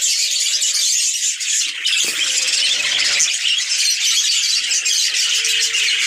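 A flock of budgerigars chattering, a dense, continuous high twittering.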